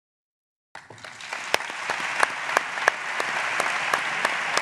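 Audience applauding, cutting in suddenly under a second in: a steady wash of clapping with a few single claps standing out sharply above it.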